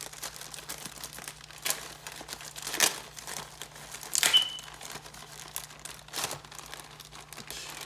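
Plastic packaging of an RC upgrade parts pack crinkling and rustling as it is opened by hand, with several louder crackles, the loudest about four seconds in.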